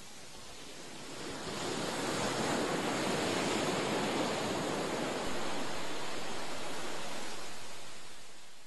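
Ocean surf washing onto a sandy beach: a steady rush of wave noise that swells after about a second and fades near the end.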